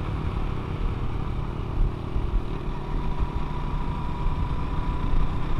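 Motorcycle engine running steadily at cruising speed, mixed with dense low wind and road noise on a handlebar-mounted microphone. A faint steady whine sits over it through the middle.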